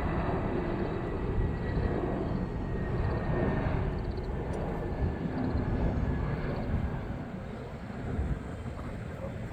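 Jet airliner engines, a steady rumble with a faint high whine slowly falling in pitch, easing off after about seven seconds.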